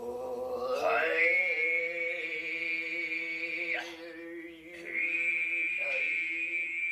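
A man throat singing in the Altai style: a steady low drone with a high whistling overtone held above it, which slides up into place about a second in, breaks off briefly about four seconds in and comes back a second later.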